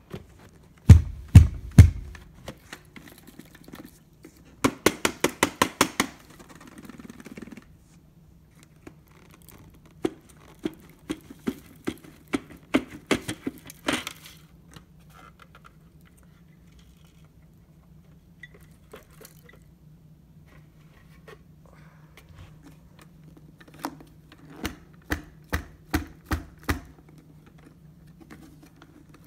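Vacuum cleaner dust bins being knocked and tapped to shake packed dust out onto carpet: a few heavy thumps about a second in, a quick rattle of taps around five seconds, then runs of sharper knocks around ten to fourteen seconds and again near the end, over a faint steady hum.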